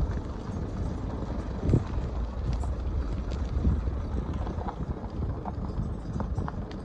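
A vehicle driving slowly along a dirt track: a steady low engine and tyre rumble with scattered knocks and rattles, one louder knock a little under two seconds in.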